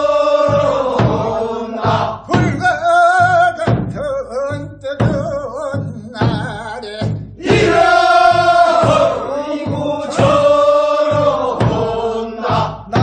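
Voices singing a Korean folk work song for weeding rice paddies (non maeneun sori, sung at the second weeding), in long wavering held notes.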